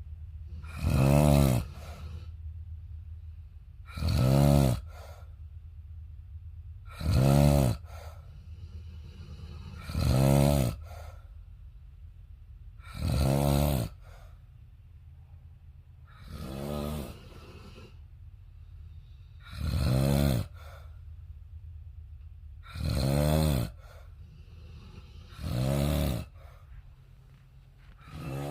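Steady, regular snoring: one snore about every three seconds, each lasting under a second, with one fainter snore midway.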